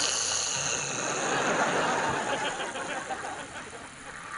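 A loud rush of hissing air, like a CPAP mask blowing air, starts suddenly and slowly weakens.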